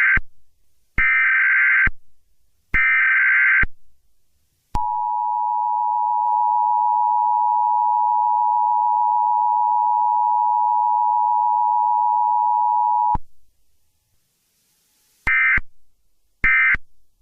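Emergency Alert System broadcast tones: the tail of one SAME header data burst and two more bursts about a second apart, then the two-tone attention signal held steadily for about eight seconds. Near the end come two short data bursts.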